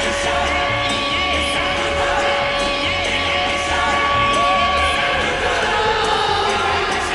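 Winnipeg Jets goal horn holding one steady tone, then sliding down in pitch from about five seconds in. Under it the goal song plays with a heavy beat and a crowd cheers and yells.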